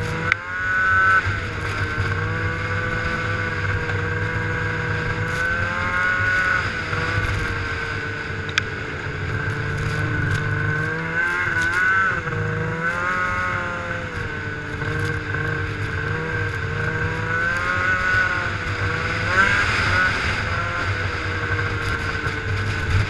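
Snowmobile engine running steadily under way, its pitch rising and falling several times as the throttle is eased and opened again.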